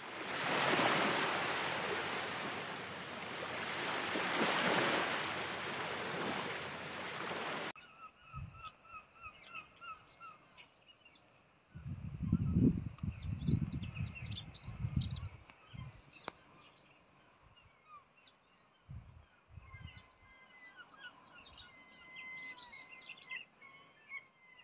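A steady rushing noise that cuts off abruptly about eight seconds in, then birds calling and chirping, with repeated short pips and a few low gusts of wind on the microphone.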